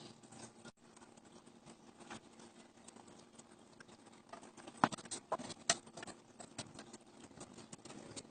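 Light clicks and taps of small electronic parts and a metal box being handled, with a cluster of sharper knocks about five seconds in, over a faint steady hum.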